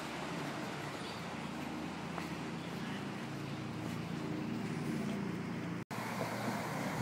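Steady city street background noise with a low, even hum, likely from traffic. The sound drops out completely for an instant about six seconds in.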